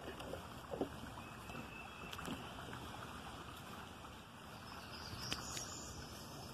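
Faint, steady outdoor background noise: an even hiss with a few soft, brief rustles and ticks.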